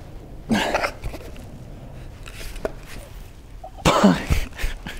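A man grunting with effort twice, a short strain about half a second in and a longer, falling one near the end, while twisting at a tight plastic wheel tin. Faint clicks of the plastic come in between.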